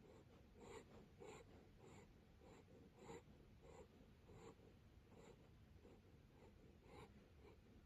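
Japanese Spitz snoring faintly in its sleep: short, soft breath sounds at an uneven pace, about one to two a second.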